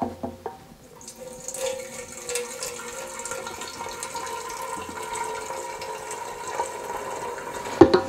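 Kerosene pouring from a bottle into the removable metal fuel tank of a Sunwind Corona RX2485 kerosene heater, a steady pour into the tank's filler neck from about a second in. A few clicks at the start, and a knock near the end.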